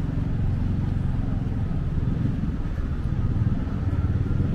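Street traffic: a vehicle engine running with a steady low rumble.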